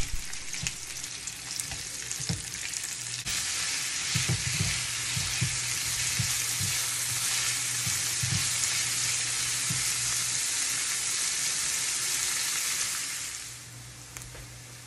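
Chopped onions frying in hot oil in a cooking pot, a steady sizzle that gets much louder about three seconds in and dies down near the end. Stirring knocks against the pot now and then.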